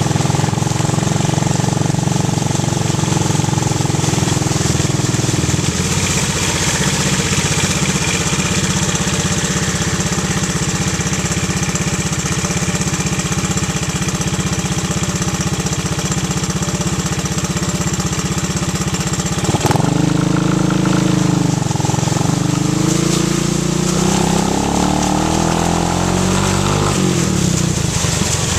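ATV engine running steadily, then revving up and down several times in the last part.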